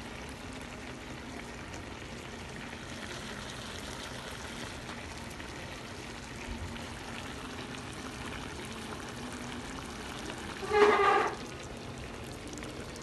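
A pot of fish soup simmering, a faint steady bubbling hiss. About eleven seconds in, a loud half-second pitched sound, like a short voiced call, stands out above it.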